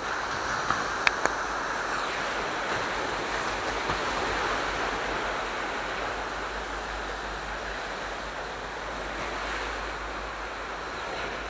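Sea surf: waves washing steadily on the shore of the Aegean, with a few sharp clicks about a second in.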